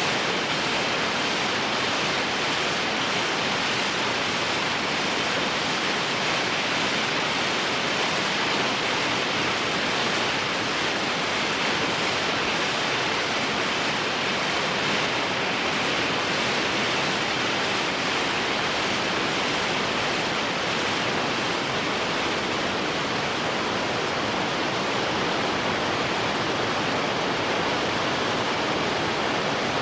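Waterfall sound effect: a steady, dense rush of falling water that holds constant without breaks or surges.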